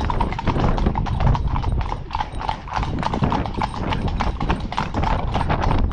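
Hooves of several ponies clip-clopping on a tarmac road, a quick, uneven run of overlapping clops.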